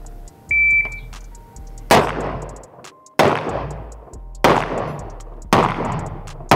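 AR-style carbine firing single shots, one roughly every second and a bit, each crack echoing and dying away before the next. A short high steady beep sounds about half a second in, before the first shot.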